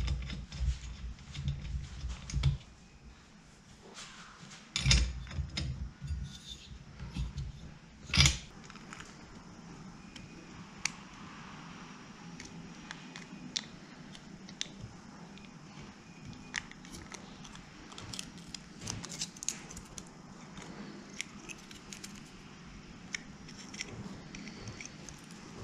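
Hands-on workshop handling noise from a Stihl FS80 trimmer: knocks and clunks in the first several seconds while the new spark plug is worked on, loudest about five and eight seconds in, then light, scattered clicks and taps as a black plastic engine cover part is handled.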